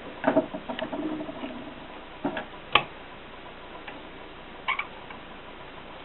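Mignon 4 index typewriter being worked: a few irregular mechanical clacks and clicks. A clattering cluster with a short metallic ring comes near the start, the sharpest single click comes a little before halfway, and a last pair of clicks comes near the end.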